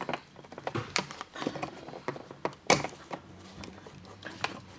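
Scattered small clicks and taps of fingers handling a pull cord and the metal end fitting of a corded curtain track, with one sharper click a little under three seconds in.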